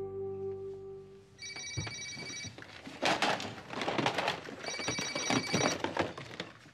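Desk telephone ringing in electronic trills of about a second each, roughly every three seconds. Between the rings, plastic VHS cassettes and other things on the desk clatter as they are shoved aside in a search for the phone.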